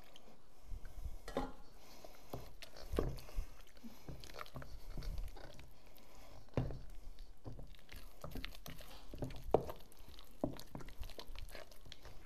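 Wooden pestle mashing and stirring a thick potato and salt-cod paste in a stainless steel bowl, as cooking broth is worked in to make it creamier. Wet squishing with irregular knocks of the wood against the metal, a few of them sharper.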